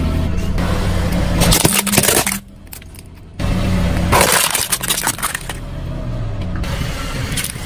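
A car tyre rolls onto a plastic toy truck and crushes it: sharp cracking and crunching of hard plastic about four seconds in, over the low rumble of the car.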